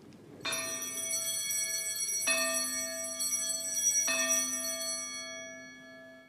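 Altar bells rung three times, about two seconds apart, at the elevation of the consecrated host. Each stroke rings on, and the last fades away.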